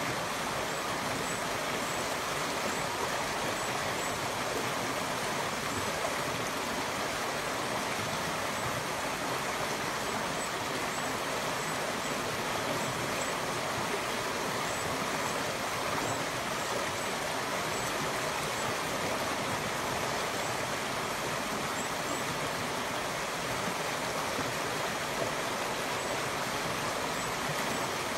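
A small river running over rocks in a shallow cascade: a steady rushing and babbling of water.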